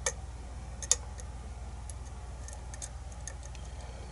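Lock pick working the pins inside a challenge lock's cylinder: two sharp clicks in the first second, then a run of faint, irregular ticks as the pins are probed and set.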